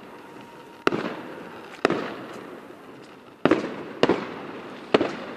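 Fireworks going off: five sharp bangs at uneven intervals, each trailing off over about half a second.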